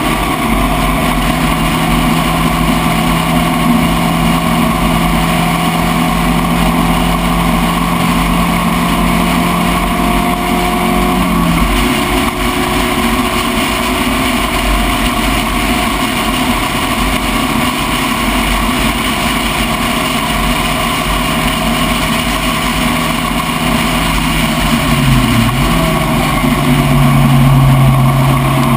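Spec Racer Ford race car engine running at speed, loud and continuous. Its pitch drops suddenly about eleven seconds in, then dips and climbs back around twenty-five seconds in, where it gets louder: the revs changing through gear changes and corners.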